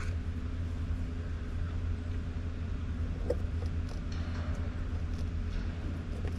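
Steady low mechanical hum of background machinery, with one faint tick about three seconds in.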